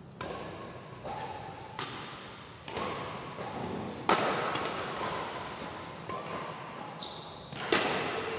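Badminton rally: rackets striking the shuttlecock about six times, each sharp hit ringing out in the big hall, the loudest about four seconds in and the last near the end.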